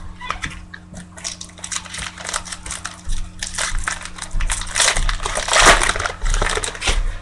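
Crinkling of a trading-card pack wrapper as baseball card packs and cards are handled: a dense run of small crackles, loudest about five to six seconds in.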